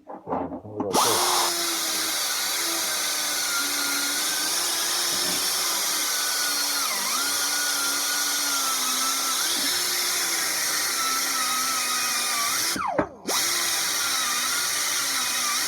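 Chicago Pneumatic air die grinder spinning a wire wheel against a machinist's vise, stripping off old paint, with a loud hiss of air. Its whine dips and wavers as the wheel is pressed into the work. It cuts out briefly near the end and starts again.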